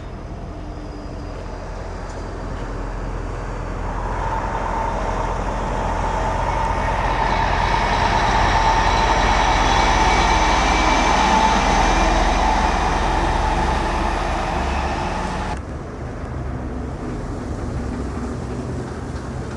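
A vehicle-like mechanical rumble with a steady whine that grows louder over several seconds, then cuts off abruptly about three-quarters of the way through, leaving a quieter rumble.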